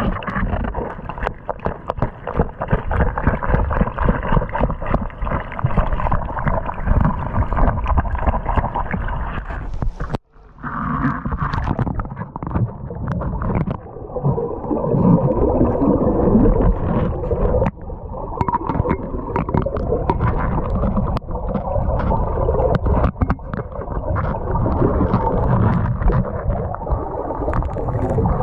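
Muffled underwater sound of river current rushing past a submerged camera, with frequent clicks and knocks of gravel and rock being moved on the bedrock. There is a brief break about ten seconds in.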